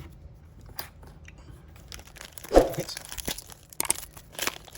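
Crinkling and tearing of a foil Pokémon booster pack wrapper and handling of cards and plastic sleeves, a run of small rustles and clicks with one louder crunching rip about two and a half seconds in.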